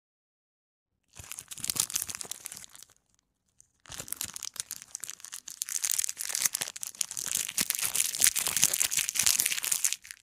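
Plastic packaging crinkling and rustling as earphones and their box are handled, in two stretches: a short one starting about a second in, then a longer one after a brief pause.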